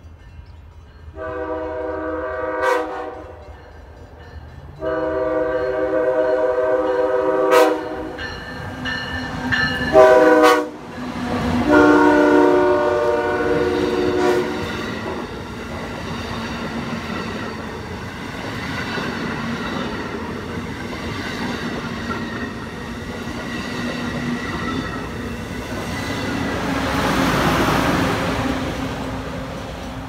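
Amtrak Acela Express high-speed trainset sounding its horn in four blasts as it approaches: two long, a short, then a final long, in the long-long-short-long warning pattern, with the pitch dropping as the train comes by. After the horn, the train rushes past with a steady roar of wheels on rails.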